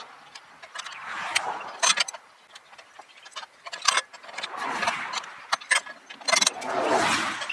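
Metal clicking and rattling as the stabilizer bolt on a kayak rack is unscrewed, with irregular sharp clicks and a few short bursts of scraping noise.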